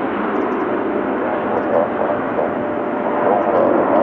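Air traffic control radio audio: a steady rush of radio static with faint voices under it, and a thin steady tone coming in past the middle.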